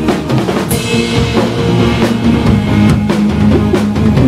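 Live band playing a rock song: a drum kit keeps a beat of bass and snare hits under held keyboard and bass notes, with a cymbal crash just under a second in.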